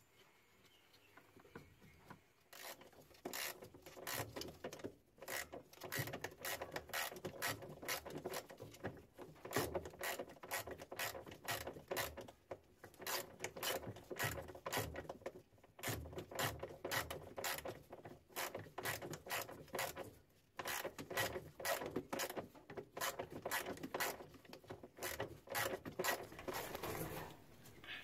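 Ratchet wrench clicking in quick runs as the drain motor's mounting bolts are tightened, starting about two and a half seconds in and stopping briefly now and then between turns.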